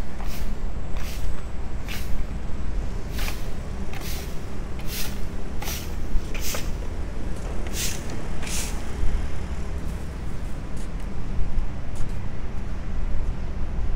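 A straw broom sweeping brick paving in brisk strokes: about ten short swishes, one every second or less, which stop about nine seconds in, over a steady low rumble.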